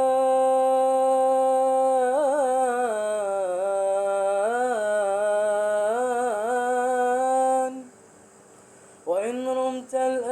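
A man's solo unaccompanied voice singing a nasheed: a long held note, then melismatic turns that dip and rise in pitch. It breaks off about eight seconds in, and after a short pause comes back in with a rising note.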